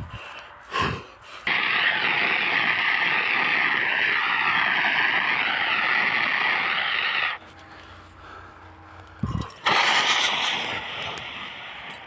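Portable fire extinguisher discharging onto burning grass: a loud, steady hiss for about six seconds that cuts off abruptly, then after a short pause a second long burst that tapers off toward the end.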